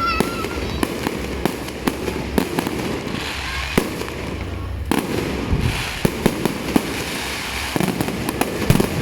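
Fireworks going off: a dense run of irregular bangs and pops over a steady rumble, with stretches of crackling.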